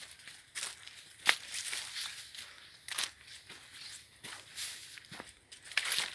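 Footsteps on a dirt forest trail, dry leaves and twigs crunching underfoot in an uneven walking rhythm, one sharp crunch about every half second to a second.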